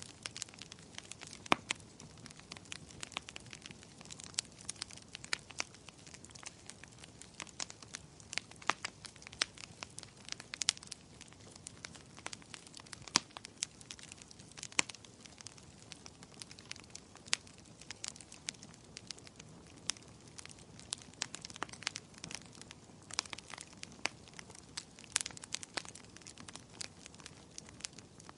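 Firewood burning in a fireplace, crackling and popping at irregular intervals over a soft steady hiss of flame.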